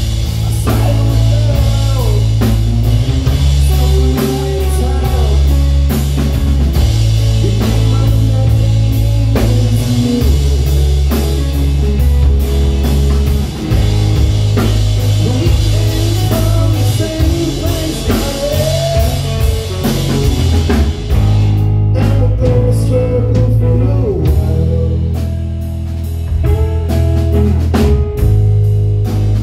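Live rock band playing: electric guitars with sliding, bending lines over a heavy bass line and a Gretsch drum kit. About two-thirds of the way through the cymbals drop out for a sparer few seconds of held guitar notes, then the drums come back in near the end.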